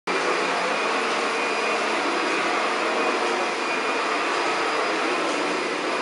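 Upright vacuum cleaner running steadily as it is pushed over carpet: a constant rushing whir with a faint high whine.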